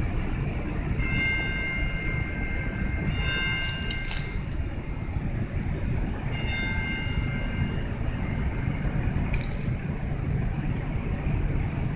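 Steady low outdoor rumble with two spells of a high, steady squeal sounding several pitches at once, one about a second in and a shorter one around six seconds, and a couple of brief crackles.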